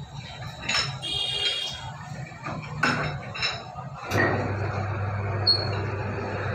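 Metallic clinks and knocks from a stainless steel pipe ring and the screw handle of a roller pipe-bending machine, with a brief ringing of the steel. About four seconds in there is a knock, and a steady low hum begins as the machine's motor starts running to roll the pipe.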